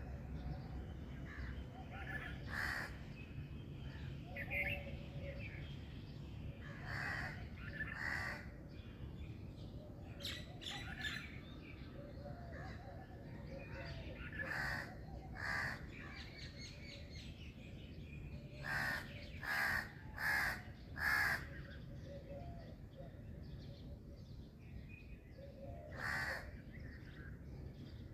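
Birds calling outdoors: scattered short loud calls, with a run of four in quick succession about two-thirds of the way through. Fainter chirps sit over a steady low background rumble.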